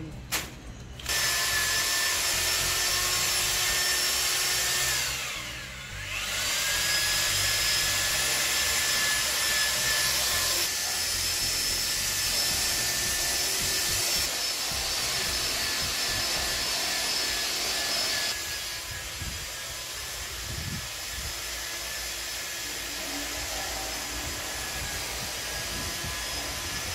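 Electric drill with a paddle mixer churning a bucket of paste tile adhesive that has partly hardened into lumps, running with a steady whine. About five seconds in the motor slows down and then speeds back up, and it runs more quietly in the last third.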